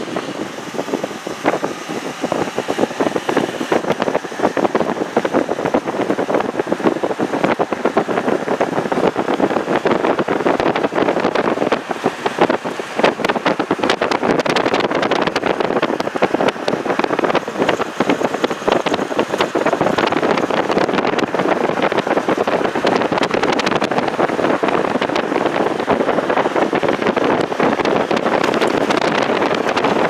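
Wind buffeting the microphone over steady road noise from a car being driven, the gusts coming as irregular thumps and rushes.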